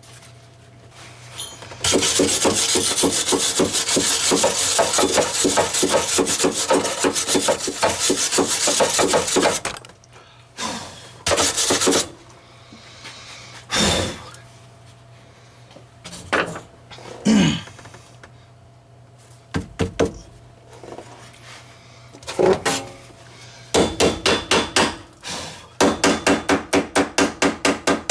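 Welds on a steel shock-tower plate being cleaned up by hand: about eight seconds of dense scraping early on, then scattered metal knocks, and near the end a fast, steady run of hammer blows on the metal, about four or five a second.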